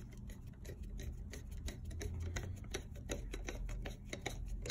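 Quick, irregular clicking and ticking, several clicks a second, as a thermostatic controller is screwed back onto a steam radiator valve, over a low steady hum.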